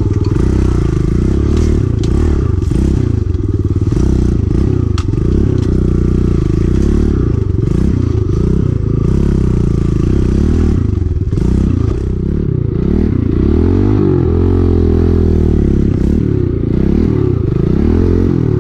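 Kawasaki KLX110 pit bike's small single-cylinder engine running while being ridden, its pitch rising and falling repeatedly as the throttle is eased on and off. Brush and the bike's rattling over rough ground add scraping and clattering.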